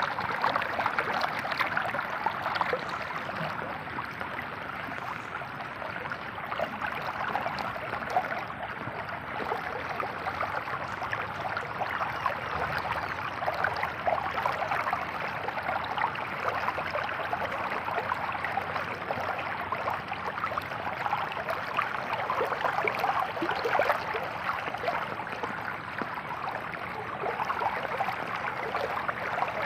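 Steady water noise of rain falling on shallow, flowing floodwater, with a fine patter of small drops and splashes throughout.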